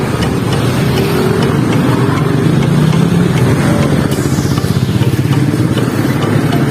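Street traffic: motor vehicle and motorcycle engines running steadily.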